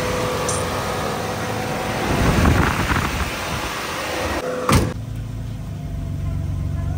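1990 Mercedes-Benz W124 300E's M103 three-litre straight-six idling smoothly with the bonnet open, a steady tone running through it. A sharp thump comes a little under five seconds in, after which the idle sounds duller.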